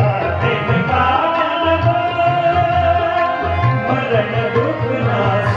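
Live Sikh kirtan: harmoniums holding sustained reedy chords while tabla keeps a steady rhythm of deep strokes, with voices singing the hymn.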